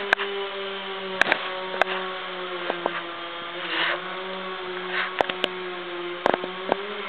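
Two-stroke chainsaw running at a steady high speed, its pitch drifting slightly, with a few sharp clicks.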